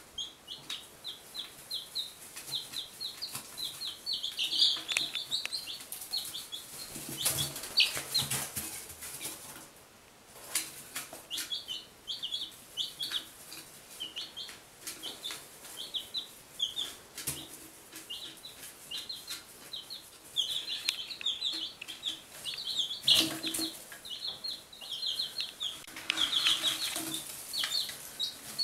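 One-week-old chicks (Buff Orpington, Barred Rock and Golden Laced Wyandotte) peeping in quick runs of short, high peeps, with brief pauses. There are a couple of louder rustling scuffles, about a quarter of the way in and again past three quarters.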